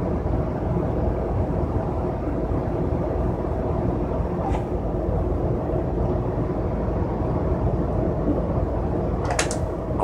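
Steady rumble of a moving vehicle heard from inside its passenger cabin, with a few steady tones over a low drone. A sharp click or clack comes near the end.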